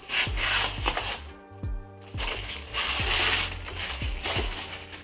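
Thin plastic protective film crinkling and rustling as it is peeled off a monitor's glossy plastic back, over background music with a steady drum beat.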